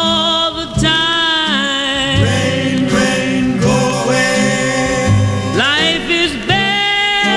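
Music from a 1960 vocal record: long, bending sung notes over a brass and orchestral accompaniment.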